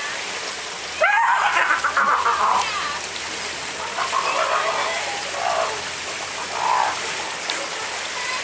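Pinnipeds splashing in a pool as they twist and dive, with the loudest burst of splashing about a second in and smaller splashes a few seconds later, over steady running water.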